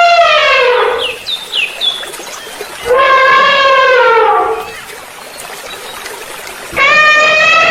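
An animal giving long, loud wailing calls, each about two seconds long and sliding down in pitch: one call ends early, another comes in the middle, and a third starts near the end. Short, high bird chirps come in the gap after the first call.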